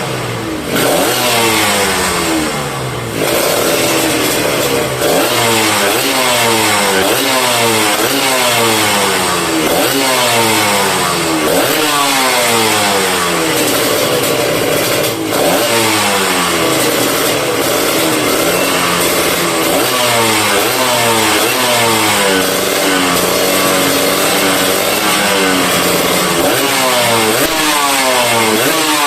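Kawasaki Ninja RR's two-stroke single-cylinder engine, fitted with a WRX GP racing exhaust and a PJ38 carburettor, revved over and over: the pitch climbs quickly and drops back every second or two. It is loud throughout.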